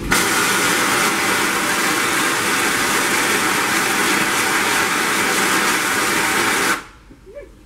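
Loud, steady hiss of pressure venting from a steam locomotive. It starts abruptly and cuts off suddenly after about seven seconds.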